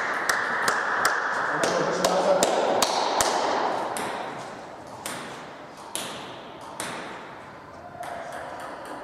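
Table tennis balls clicking: a fast, even run of clicks for the first three seconds or so, then a few single clicks about a second apart. A murmur of voices in the hall lies under the first half and fades.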